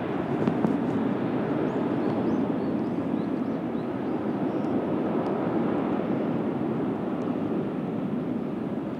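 Jet airliner engines heard at a distance as a steady, even noise with no distinct whine, as the aircraft takes off or lands.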